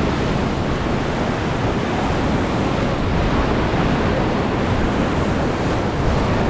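Fast-flowing river water rushing around a raft, a loud steady noise, with wind buffeting the microphone.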